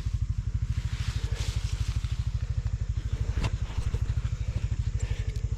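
A small engine running steadily, an even low throb of about a dozen pulses a second, with a sharp click about three and a half seconds in.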